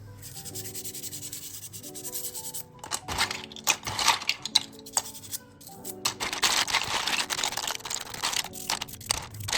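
Scrubbing strokes on a dirty mechanical keyboard being cleaned, in two spells about three and six seconds in, over background music of held notes.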